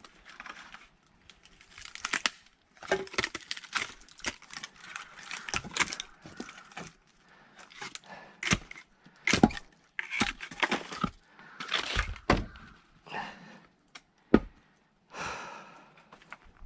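Firewood being split by hand: a run of irregular sharp strikes with wood cracking and tearing apart, the loudest about nine and fourteen seconds in.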